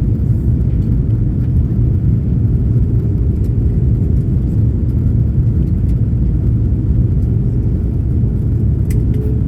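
Steady low rumble of cabin noise inside an Airbus A330 on approach: engine and airflow noise heard through the fuselage at the window seat.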